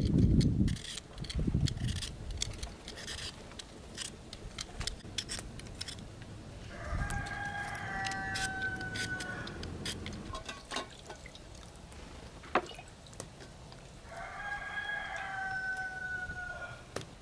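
A rooster crowing twice, each crow a long call of about three seconds. Scattered clicks and a few low thumps, the loudest at the very start, come from work going on close by.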